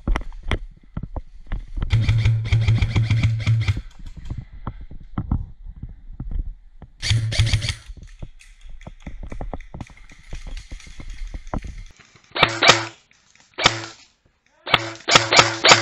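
Dry leaves and brush rustling and twigs snapping as someone pushes through cedar trees over leaf litter, with two louder stretches. From about twelve seconds in come several short, loud bursts of airsoft rifle fire.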